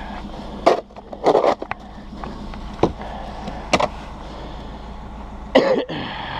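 Snow shovel scraping and knocking in short, separate strokes, about five in six seconds, the longest near the end, over a steady low hum.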